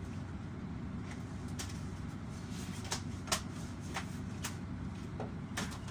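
Steady low rumble heard from inside a railway carriage, with irregular sharp clicks and knocks as a freight train's wagons roll past on another track. The loudest knock comes about a third of the way in.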